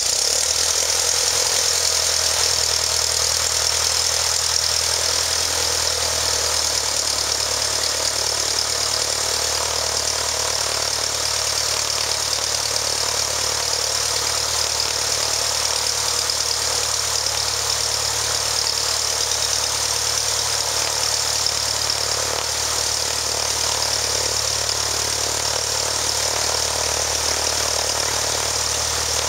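Freshly overhauled aircraft piston engine running steadily at idle on its first start after the overhaul, with a steady low drone and a strong hiss.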